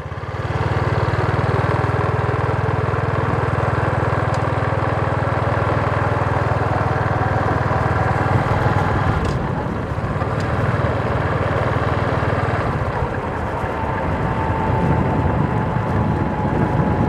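Steady engine and wind rumble of a vehicle being driven along a paved road, heard from on board; it starts about half a second in.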